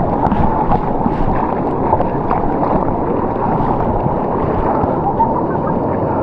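Whitewater rapids rushing and splashing close to the microphone in a steady churning noise.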